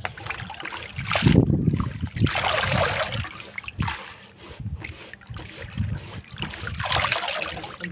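Hands swishing and squeezing grated potato shreds in a bowl of water, splashing and dripping as handfuls are lifted into a second bowl of fresh water for rinsing. The splashing is loudest between about one and three seconds in, and again near the end.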